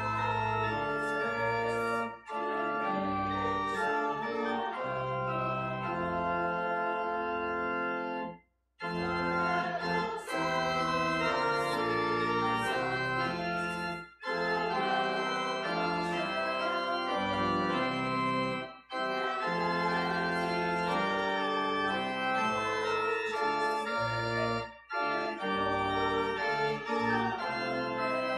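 Church organ playing a hymn in sustained chords with the congregation singing along, pausing briefly at the end of each line. The longest break comes about a third of the way in.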